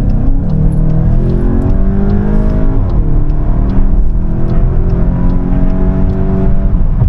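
VW Golf 8 GTI's 2.0-litre turbocharged four-cylinder engine, heard from inside the cabin, pulling hard under acceleration. Its note rises, drops with an upshift about three seconds in, rises again through the next gear, and falls away near the end.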